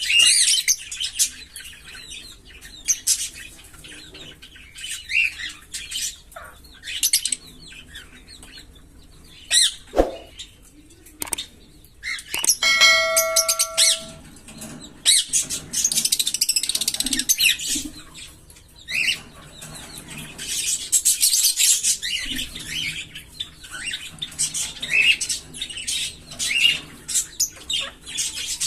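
Pair of green Fischer's lovebirds chirping in short high calls throughout, breaking into long runs of rapid chattering about halfway through and again in the second half. A short ringing tone sounds briefly just before the middle.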